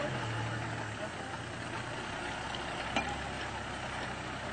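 A motor engine running steadily. A low hum fades out about a second in, and there is a short sharp tick about three seconds in.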